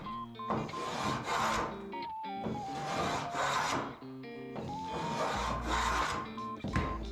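Repeated rasping strokes of wood being rubbed or worked, each lasting about a second, several in a row, over background music with a melody and bass.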